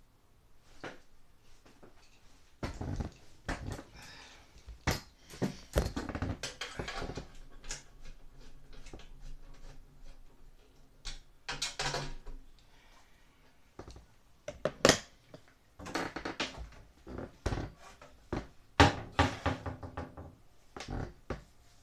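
Irregular clicks, taps and scraping of plastic and metal parts as hands work inside a Broan 655 bathroom heater, exhaust fan and light housing. The noises come in clusters with short pauses between them.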